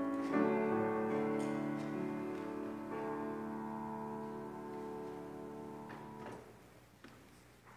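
Keyboard playing slow piano chords: a chord is struck about a third of a second in and another about three seconds in, each held and fading, and the music stops about six seconds in. A few faint clicks follow.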